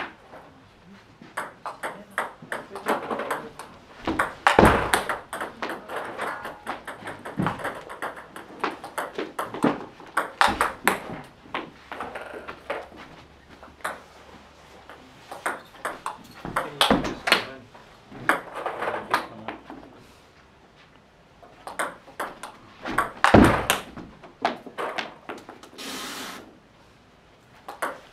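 Table tennis ball clicking back and forth off rubber paddles and the table in a run of short drills: a backhand sidespin serve, the return, and a forehand loop attack. Brief pauses fall between the rallies.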